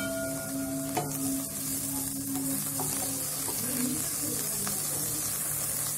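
Oil sizzling steadily in a pan as chopped, boiled takala leaves are stir-fried with onions and green chillies, a spatula stirring them through, with a faint tick about a second in.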